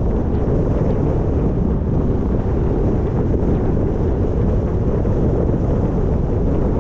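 Wind buffeting the microphone: a steady, even low rumble with no distinct events.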